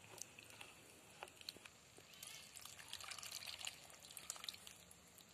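Faint liquid sounds: coconut milk squelching as hands work a ground spice mixture into it, then the milky mixture pouring in a stream into a pot of boiled jackfruit pieces.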